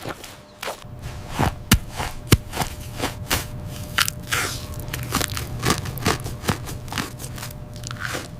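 A run of sharp, irregular crunches, several a second, over a low steady hum that comes in about a second in.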